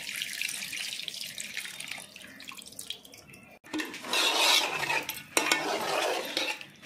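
Tamarind juice being poured and trickling into a pot of raw fish pieces in spice paste, fading out over the first three seconds. After a short break, the wet fish and masala are mixed and squished by hand, with a spoon knocking against the pot.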